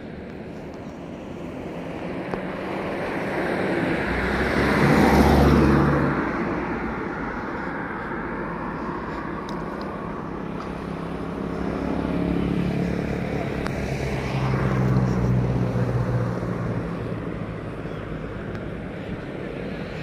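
Road traffic: a vehicle passes close, its engine and tyre noise swelling to a peak about five seconds in and fading, then another vehicle passes more slowly between about twelve and seventeen seconds.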